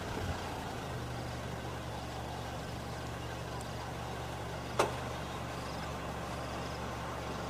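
A vehicle engine idling steadily with a low hum. One sharp click almost five seconds in.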